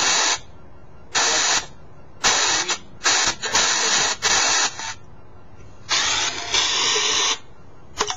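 A SONO X10 Spirit Box Pro app on a smartphone sweeping radio frequencies, playing irregular bursts of static through the phone's speaker. About six bursts, most under a second, one about a second and a half long, with short gaps between them.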